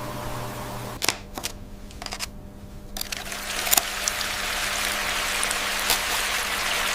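A few sharp clicks a little after a second in, then from about three seconds in a steady trickle of running water that rises and holds.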